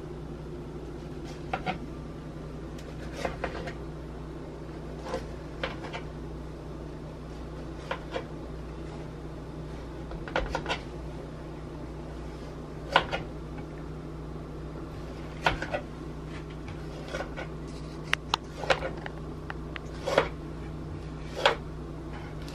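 Kitchen knife cutting strips through raw bread dough on a parchment-lined metal baking sheet: short, irregular taps and scrapes as the blade meets the pan, roughly one every one to two seconds, over a steady low hum.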